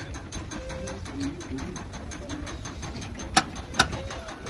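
Rapid, even mechanical ticking, about six a second, over a steady low rumble, with two sharp metallic clicks about half a second apart near the end.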